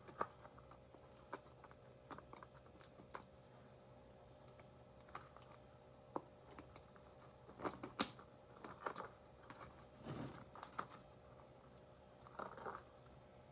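Scattered small clicks, taps and rubbery rustling from handling a balloon as it is stretched over the neck of a bottle of fermenting mead, with a sharper click about eight seconds in.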